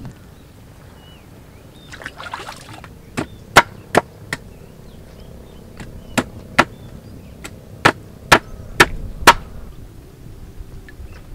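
Knife chopping through a fish on a wooden cutting board: about a dozen sharp knocks, often in pairs, after a short scraping rustle about two seconds in.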